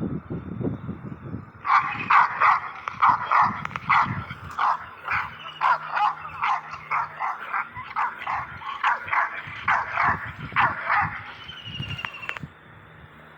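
A dog barking over and over, a run of short, fairly high barks about two a second that stops suddenly near the end. Low pulsing sounds come before the barking in the first second or two.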